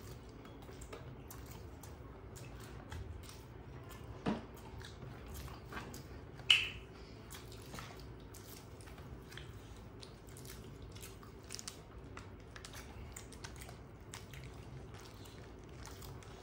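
Two people eating rice with their fingers from steel plates: chewing and lots of small wet clicks and smacks from mouths and hands mixing food, with one louder sharp smack a little before halfway.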